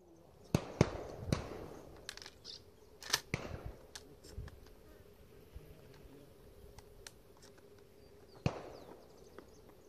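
A string of shotgun shots: two in quick succession about half a second in, another just after, a pair around three seconds and one more near the end. Some are sharp and close, others fainter and farther off, each with a short ringing tail.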